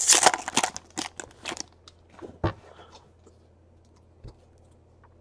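Foil wrapper of a trading-card pack crinkling and tearing as it is ripped open, for about the first second and a half. Then two soft knocks as the cards are handled, and quiet.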